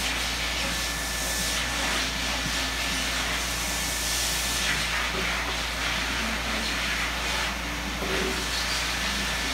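A steady, even hiss of background noise.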